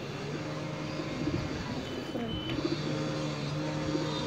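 Pigeons cooing over a steady low mechanical hum.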